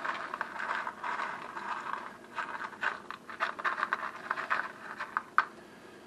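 Diced hash brown potatoes tipped and scraped off a paper plate onto a pizza crust: a busy run of soft scraping and small patters and clicks, with one sharper click about five seconds in.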